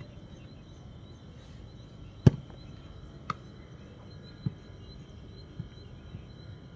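A football being kicked: one sharp, loud kick about two seconds in, then three fainter kicks over the next few seconds. A steady high insect hum runs underneath.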